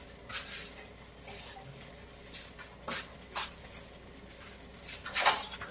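A few short knocks and clinks of utensils against a cooking pot, spaced out, the loudest one near the end.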